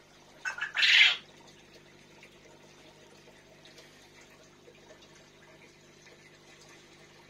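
Aquarium filter and air pump running, a steady low hum under a faint trickle of water. About half a second in comes a brief loud rush of noise, a few quick pulses and then a longer one lasting under a second.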